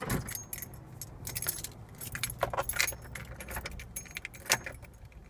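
A bunch of car keys jangling in the hand: a quick, irregular run of small metallic clicks and rattles.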